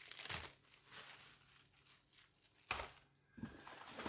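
Plastic packaging rustling as parts of a new cordless stick vacuum are unpacked, with a sharp knock a little past halfway and two duller thuds near the end as the parts are handled.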